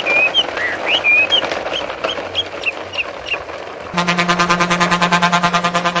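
Repeated short, high chirps or squeaks, about two a second, quickening slightly, for the first three and a half seconds. About four seconds in, an electronic music track starts, with a steady low drone and an even pulsing beat.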